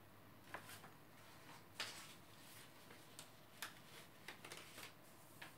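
Faint handling sounds: a few soft clicks and taps as shrimp halves are picked from a small bowl and set on top of a plated salad, the clearest about two seconds in.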